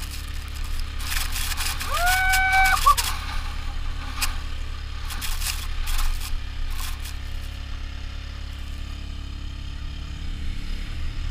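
Quad bike towing a sled across snow: a steady engine drone under repeated knocks and rattles of the sled bouncing over bumps, loudest in two clusters early and mid-way. A brief shout rises and holds about two seconds in.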